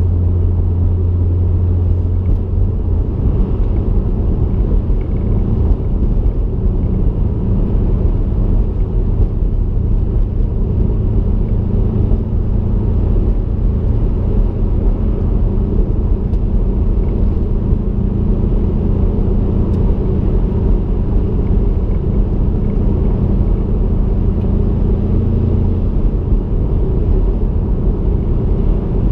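Cabin sound of a 2020 Subaru WRX STI's turbocharged flat-four with a Stage 3 tune and turbo-back exhaust, cruising steadily. A continuous low engine and exhaust hum sits over road noise, and its pitch shifts slightly about three seconds in and again near the end.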